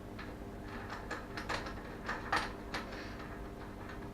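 Light, irregular metallic clicks and scrapes of a metal BMX peg being screwed by hand onto the axle threads.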